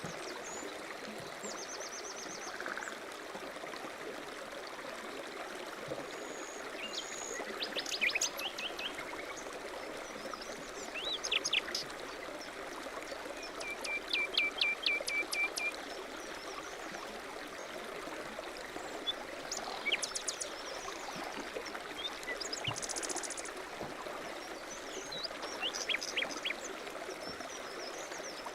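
A stream running steadily, with small birds chirping and calling over it; about halfway through one bird gives a run of quick repeated notes, and later a fast, very high trill.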